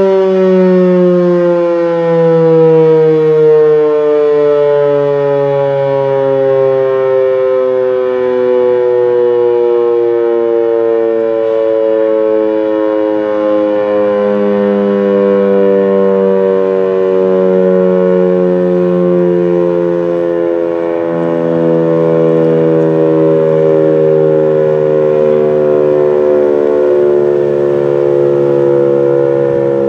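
H.O.R Super Sirex single-tone outdoor warning siren sounding a full alert, loud and steady, its pitch sliding slowly and steadily lower as the rotor winds down.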